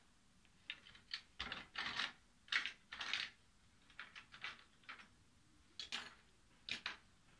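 Ballpoint pen scratching across notebook paper in a series of quick drawing strokes, densest and loudest in the first half, then a few shorter, separate strokes.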